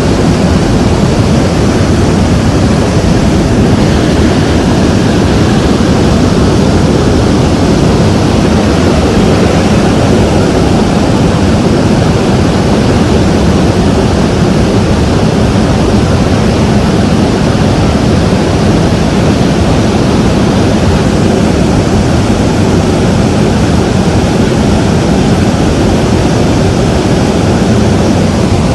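Steady, loud roar inside the cargo hold of a military transport aircraft in flight with its rear ramp open: engine noise mixed with the rush of air past the open ramp.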